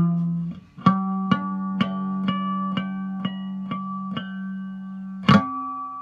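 Hubcap Howler box guitar with a hubcap resonator, played by hand: a low string drones under a run of plucked single notes, about two a second. A little past five seconds a sharp strum lands and is left to ring.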